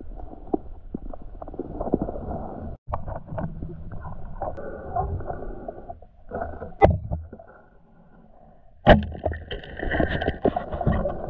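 Muffled rumble and sloshing of river water with a few sharp knocks, the second about 9 seconds in coming after a short quieter stretch.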